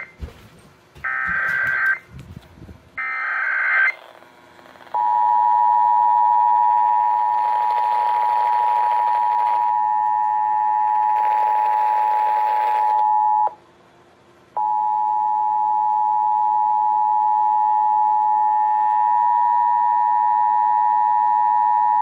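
Emergency Alert System test played through an FM radio's speaker: three short bursts of the warbling SAME data header, then the steady two-tone EAS attention signal (853 and 960 Hz). The tone breaks off for about a second partway through and then resumes.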